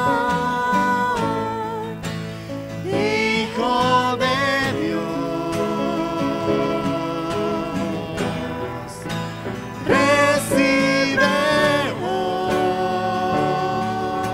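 Spanish-language worship song performed live: voices singing held, sustained lines over strummed acoustic guitar and upright piano.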